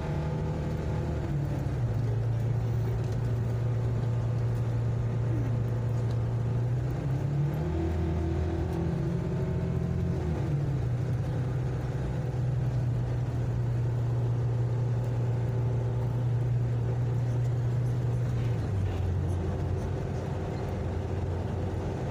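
Vehicle engine and road noise heard from inside while riding. The steady engine hum shifts up and down in pitch a few times.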